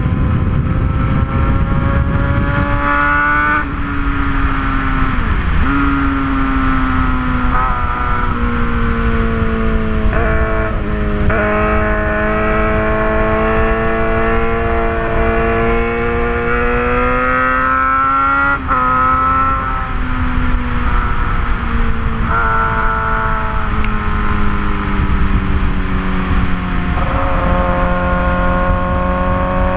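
Straight-piped Suzuki GSX-R750 inline-four engine under way. The revs climb and drop again and again with throttle and gear changes, with a long steady climb about halfway through.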